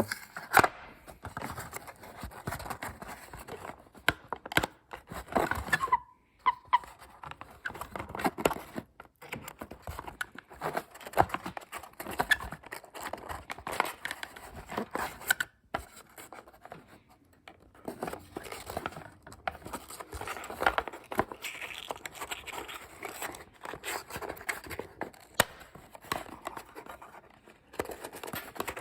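Toy packaging being opened by hand: irregular snipping, scraping, tearing and crinkling of cardboard and plastic, with many small clicks.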